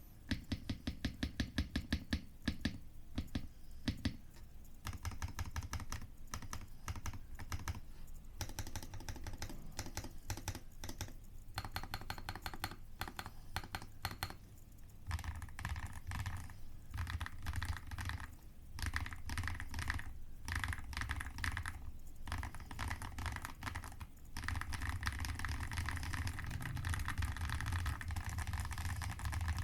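Artnix GK75 mechanical keyboard with Leobog Ash Wood V3 switches and Cherry-profile keycaps being typed on. It opens with a run of evenly spaced keystrokes, then goes into continuous fast typing that grows louder past halfway.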